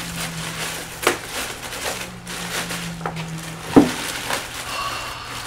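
Plastic bag crinkling and rustling as a boxed alternator is unwrapped, with a few sharp clicks and a louder knock a little under four seconds in.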